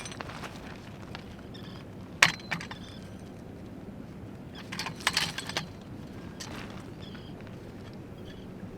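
Hard objects knocking and clinking against each other: one sharp clink about two seconds in, then a quick cluster of clinks around five seconds, over a steady low background.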